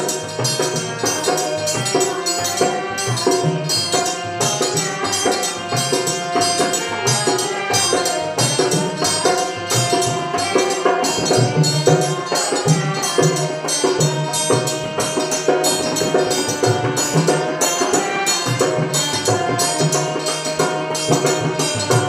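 Devotional bhajan played live on harmonium, dholak and dhantal, with a woman singing the melody. The harmonium holds the chords, the dholak keeps a steady beat and the dhantal's metal rod gives regular bright clinks.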